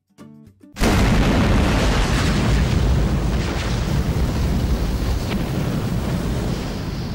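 Intro sound effect of a fiery explosion: a few short notes, then a sudden blast about a second in that turns into a steady rushing rumble of flames, fading near the end.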